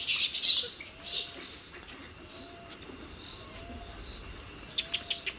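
A steady high-pitched drone of insects in tropical forest, with a few high chirps in the first second and again around five seconds in. Under it, a faint short call repeats about once a second.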